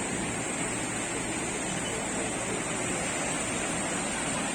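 Sea waves washing onto the shore, a steady rushing noise.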